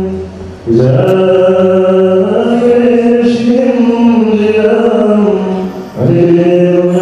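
Voices chanting a Palm Sunday liturgical hymn together in long, slowly moving held notes, pausing for breath about half a second in and again near six seconds.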